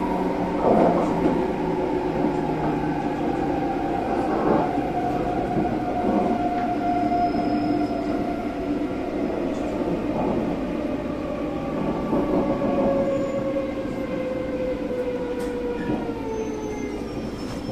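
Local train slowing to a stop at a station platform: running noise with a whine that falls steadily in pitch, fading a little toward the end.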